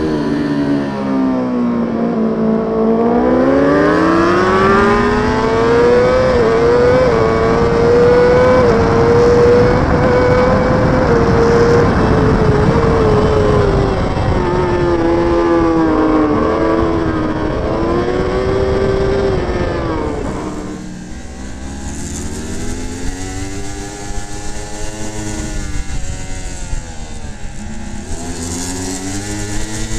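Onboard sound of racing superbike engines at full race pace: the engine note drops, then climbs in steps through quick gear changes and rises and falls through the corners. About two-thirds through it cuts to another bike's onboard, quieter, with more wind rush and the engine rising and falling.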